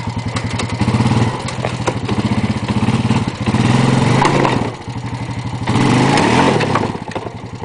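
A vehicle engine running and being revved in three surges, pitch rising and falling each time, with a few knocks and clatters: the vehicle is being driven to get it to move on the field.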